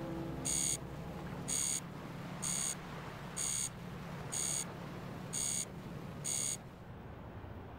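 Seven short, high-pitched electronic beeps, about one a second, over a low steady hum.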